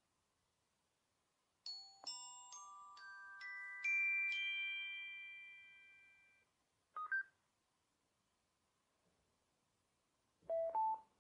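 Small portable Bluetooth speaker powering on: a startup jingle of about seven bell-like chime notes that ring on and fade over several seconds, then a quick pair of beeps, and near the end a rising two-note tone.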